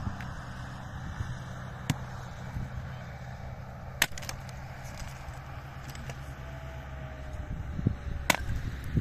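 A pickaxe striking hard, stony ground: three sharp blows at uneven intervals, about two, four and eight seconds in, the last two the loudest.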